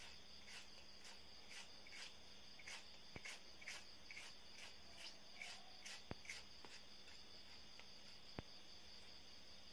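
Faint, rhythmic scraping of a fork drawing gel out of a peeled aloe vera leaf, about two strokes a second, stopping about six seconds in, with a few sharp ticks of the fork.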